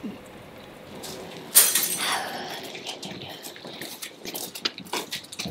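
A sudden loud crash about one and a half seconds in, its ringing fading over the next second, followed by scattered light ticks.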